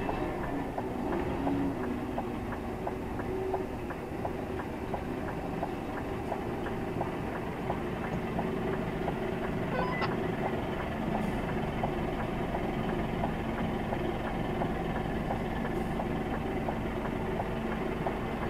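HGV tractor unit's diesel engine running at low revs while the 44-ton truck reverses slowly, with a steady light ticking about four times a second.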